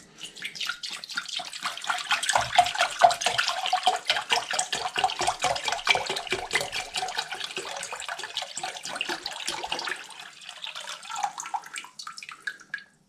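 Apple juice poured into a saucepan: a steady splashing stream with glugs, thinning after about ten seconds and trickling off near the end.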